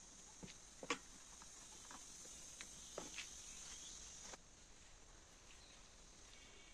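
Near silence: faint background hiss with a few soft, scattered clicks, the loudest about a second in.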